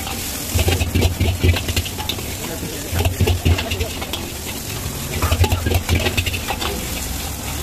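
Vegetable egg rice frying in a pan: a steady sizzle with three bouts of rapid metal spatula clatter as the rice is stirred and tossed.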